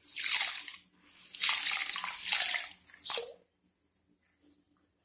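Coarse rock salt poured from a small steel cup into a bucket of water: a hissing patter of grains into the water in a short pour, a longer one and a brief last one, stopping about three and a half seconds in.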